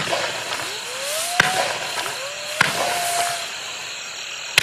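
Hornet's Revenge 30-shot consumer firework cake firing: three sharp pops about a second and a quarter apart, with a fourth at the very end. Each shot carries a rising whine, the zipping 'hornet' effect climbing into the air.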